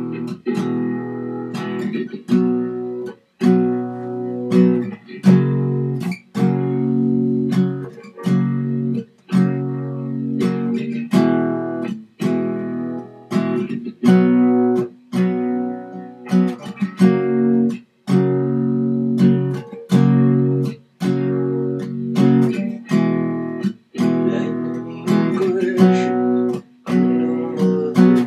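Acoustic guitar strummed by hand without a pick, moving through E major, B5 and a third chord in a repeating progression. The strumming stops briefly every few seconds at the chord changes.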